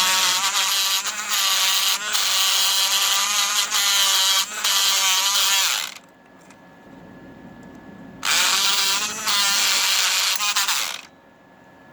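Battery-powered electric lock pick gun buzzing as its motor-driven cam snaps the pick up and down inside a padlock, its pitch wavering. It runs for about six seconds, stops, then runs again for about three seconds.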